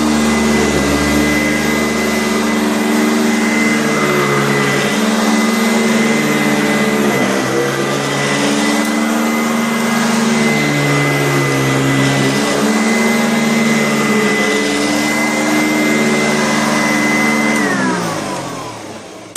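Kent EUROCLEAN upright vacuum cleaner running with a steady high motor whine, its lower hum swelling and easing every few seconds. About two seconds before the end it is switched off and the motor winds down, falling in pitch as it fades.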